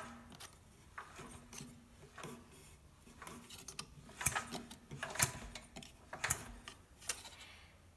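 Small engine being turned over by hand after a new ignition coil is fitted, to test for spark: irregular mechanical clicking and ticking, with sharper clicks about once a second in the second half.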